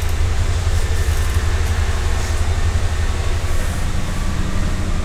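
Inside the passenger cabin of a MAZ-105 diesel city bus under way: a steady low engine and drivetrain rumble, with a somewhat higher engine note coming in a little past halfway.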